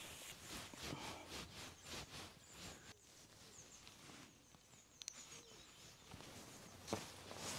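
Quiet outdoor ambience with faint, scattered rustling from handling the fishing rod and gear, and a few faint high bird chirps near the middle.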